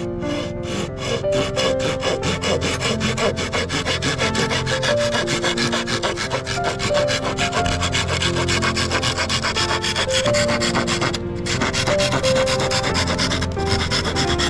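Hand saw cutting wood in fast, even strokes, about five a second, pausing briefly twice near the end. Background music with a melody plays underneath.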